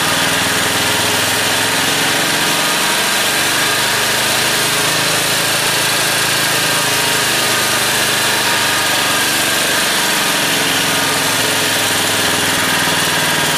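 Generac 4000XL portable generator engine running at low idle while its low-idle setting is adjusted by hand. The engine speed sinks and climbs again a couple of times, heard as its pitch dropping and rising.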